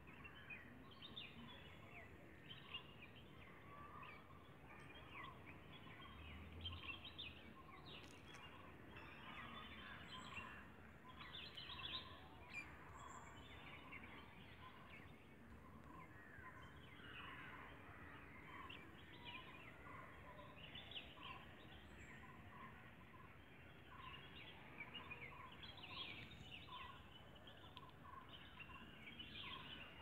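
Faint outdoor chorus of many small birds, with short chirps and calls overlapping throughout and a short note that keeps recurring.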